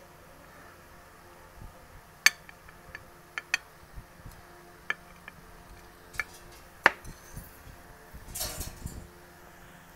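Crab leg shell clinking against a glass bowl as it is dipped and stirred in sauce: sharp, separate clinks every second or so, then a brief rustle near the end.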